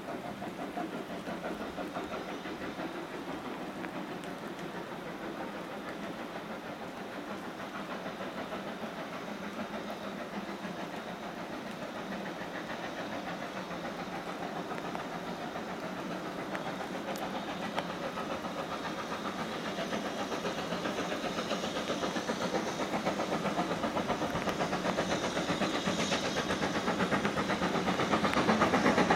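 BR Standard Class 9F 2-10-0 steam locomotive, fitted with a single chimney, working hard on a departure with a rapid, even beat of exhaust. It grows steadily louder as it approaches, most of all over the last third.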